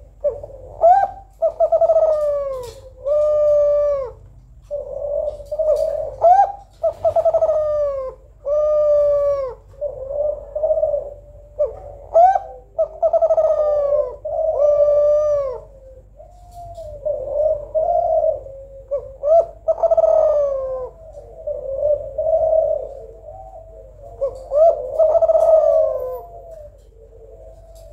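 Female Kelantan spotted dove cooing in repeated runs of several coos with short pauses between. Each coo rises and then falls in pitch. It is a female's call used to set reluctant males cooing.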